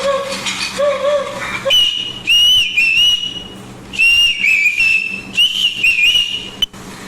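A man imitating bird calls with his mouth: a lower wavering call, then high, clear whistled notes in short warbling phrases. The whistling cuts off suddenly near the end.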